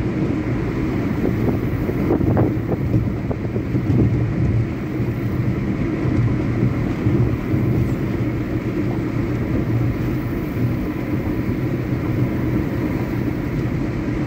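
Steady low rumble of engine and tyre noise inside the cabin of a car driving along a paved highway.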